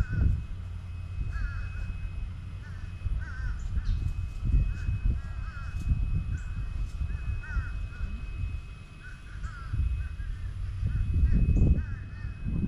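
Birds calling over and over in short, repeated calls, over a low, uneven rumble.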